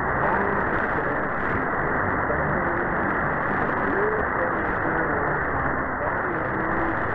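A weak shortwave AM pirate radio broadcast received on an SDR in synchronous AM with a narrow filter, cut off above about 2 kHz. A steady hiss of static fills the sound, with a faint voice barely audible underneath, coming and going.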